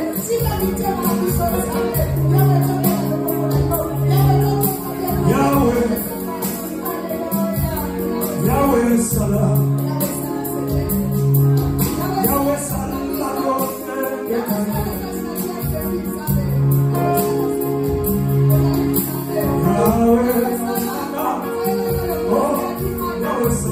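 Church worship music: voices singing over instruments with a steady beat.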